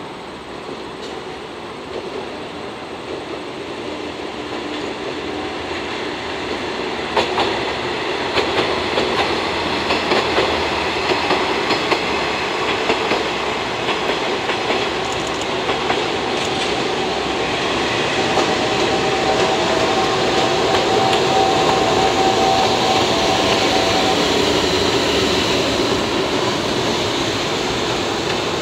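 JR Freight EF510 electric locomotive running light at low speed through yard points, its wheels clicking over rail joints and crossings, growing steadily louder as it approaches and passes. A thin whine joins in for several seconds midway.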